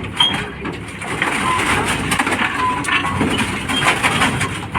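Soil being dug and dumped by a JCB backhoe loader's bucket: a dense, continuous crunching and crackling of mud and clods. A few short high chirps sound through it.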